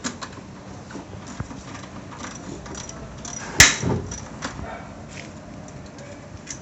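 Scattered tool clicks and knocks from work on a motorcycle being taken apart, with one loud, sharp clank a little past halfway that rings briefly.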